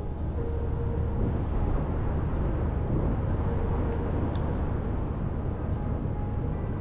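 Steady outdoor background noise with a heavy low rumble that stays even throughout; a faint brief hum rises over it about half a second in.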